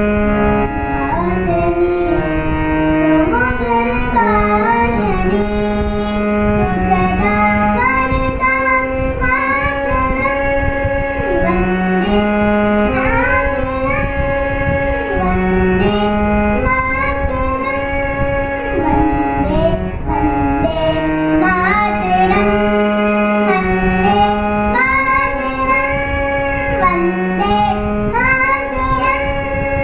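A harmonium playing a melody, with a child's voice singing a song along with it.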